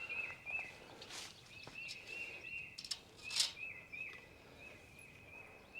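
Outdoor ambience: a steady run of short, high chirps at one pitch, repeating two or three times a second, with a few soft footsteps or rustles on the ground.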